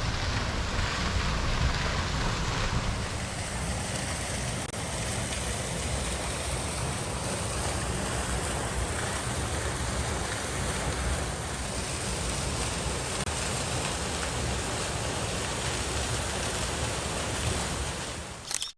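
Steady driving noise from a Suzuki Jimny JB64 on a forest road, a deep rumble with rushing road and wind noise over it, which cuts off abruptly just before the end.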